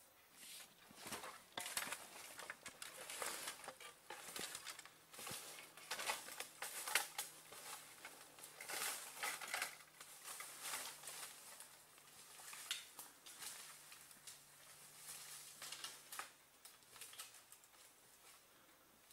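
Irregular rustling and crackling of dry bamboo leaves, stalks and undergrowth as a person moves through a bamboo thicket on foot, dying away near the end.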